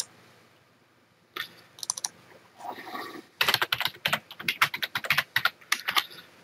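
Computer keyboard typing: a few separate key clicks, then a quick run of keystrokes in the second half as a variable name is typed.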